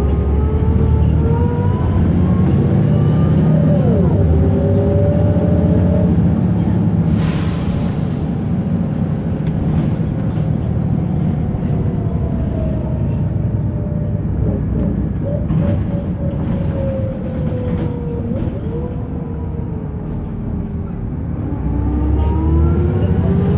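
Volvo B7RLE bus's seven-litre six-cylinder diesel and transmission heard from on board: the whine climbs as the bus pulls away, drops at a gear change about four seconds in, and a short hiss of air follows a few seconds later. Later the whine falls as the bus slows, then rises again near the end as it pulls away once more.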